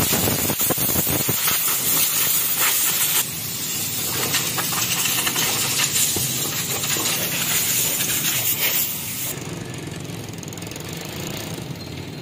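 Pressure washer running: a loud hiss of water spray over the steady hum of its pump motor. The hiss drops abruptly in level about three seconds in and again around nine seconds.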